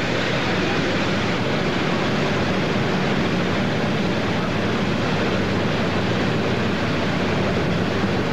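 Steady rushing noise of a motorboat under way, with its engine and the water blended into one even sound and no separate events.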